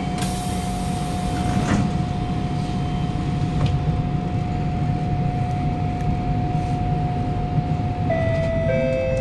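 Siemens C651 train's traction inverter and motors as it pulls away: a steady high whine over low running rumble, stepping down in pitch twice near the end as it picks up speed. A short hiss comes at the very start.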